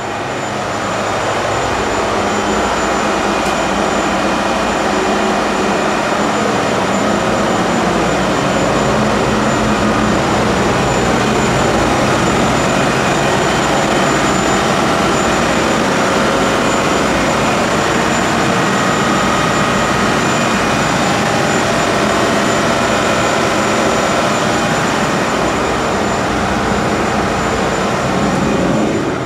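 Loud, steady running noise of an offshore vessel's engine-room machinery: a dense drone with steady whining tones over it. It grows louder about a second in and drops suddenly near the end.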